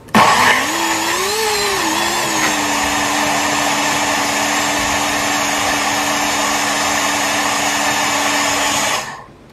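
NutriBullet blender motor running, blending green apple and squash cubes. It starts abruptly, its pitch rises and wavers while it breaks up the chunks, then it settles into a steady whine as the mix turns to liquid. It cuts off suddenly about nine seconds in.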